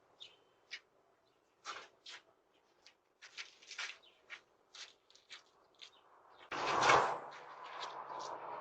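Scattered short bird chirps, then a louder rushing noise that swells up about six and a half seconds in and settles into a steady hum.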